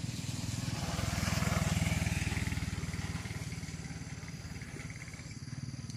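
A motorbike engine going past, growing louder over the first two seconds and then fading away.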